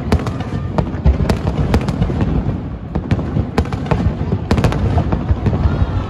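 Aerial fireworks going off: many sharp bangs and crackles in quick, uneven succession over a continuous low rumble.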